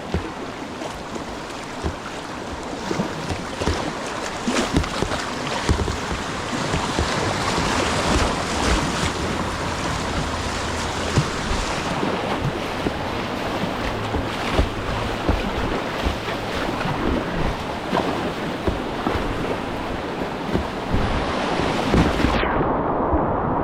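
Rushing whitewater and irregular splashing close to the microphone as a kayak runs a river. About a second before the end the sound turns suddenly muffled, the upper half of the range dropping away.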